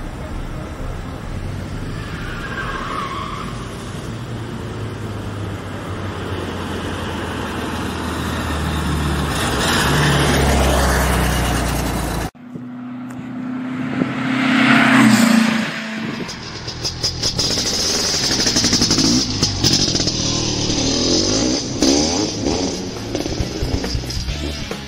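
A VW Beetle driving hard, its engine noise building over about ten seconds. It breaks off suddenly at an edit, then a second loud pass of the car follows.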